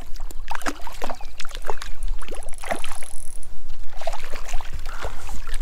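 Hooked brook trout thrashing and splashing at the water's surface as it is played in, a run of irregular splashes and sloshes.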